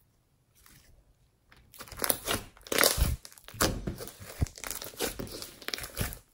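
Slime being squeezed, pressed and stretched by hand, giving a dense run of short sharp crackles and sticky squelches. It starts after about a second and a half of near silence.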